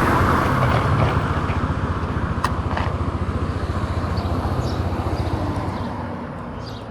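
Motor scooter engine running with road noise, gradually dying down as it slows. A single sharp click comes about two and a half seconds in.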